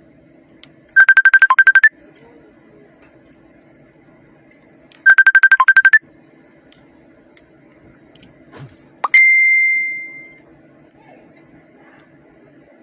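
An electronic trilling ring, about a second of rapid beeps, sounds twice about four seconds apart. Near the end a single high ding fades out over about a second, over a faint steady low hum.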